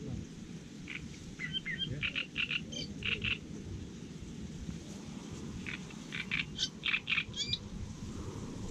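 Frogs croaking in two runs of short, rapid calls, the first about a second in and the second around six seconds in.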